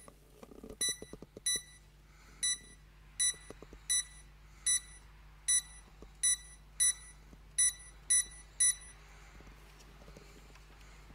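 A run of about a dozen short, high electronic beeps at slightly uneven intervals, roughly one every two-thirds of a second, stopping about nine seconds in.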